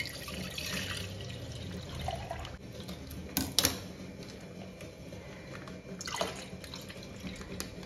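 Milk poured from a plastic pouch into a stainless steel milk cooker, a steady stream splashing into the milk already inside. Two sharp clicks about three and a half seconds in come as the pouches are handled, and the pouring resumes near the end.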